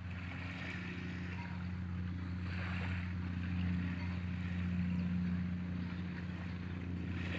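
Boat engine running with a steady low drone, and a faint hiss that swells and fades.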